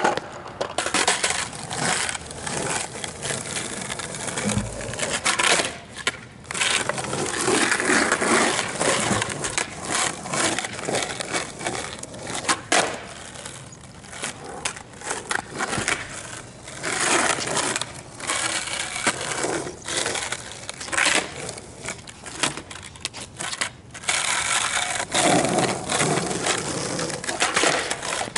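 Skateboard wheels rolling over rough asphalt, a continuous gritty rumble broken by many sharp clacks of the board popping and landing during flatground tricks.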